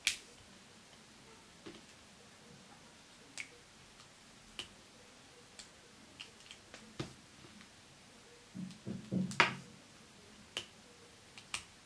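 Sharp little clicks and snaps of rubber loom bands being stretched and let go on a small plastic hook, scattered about one a second. A short cluster of duller handling noise comes about nine seconds in, with the loudest snap.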